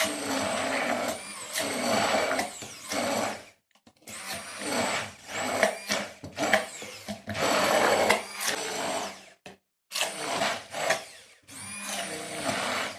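Electric blender pureeing boiled carrot and honey, run in about five bursts of one to three seconds with short pauses between; its motor whine wavers in pitch as it works through the thick mixture.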